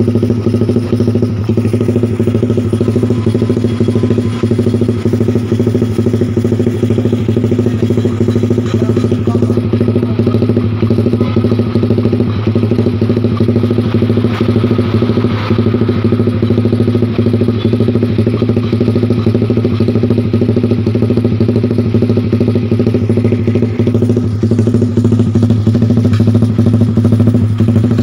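Suzuki Satria FU 150 fuel-injected single-cylinder engine idling steadily with the throttle closed at about 1600 rpm. It is running on the Thai-style 'timing kuda' idle tune mapped through a BRT Juken 5 ECU.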